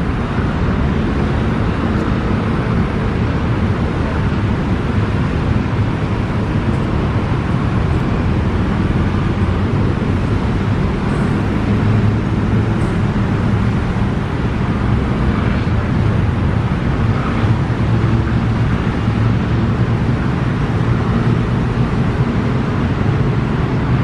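Steady rumble of city road traffic.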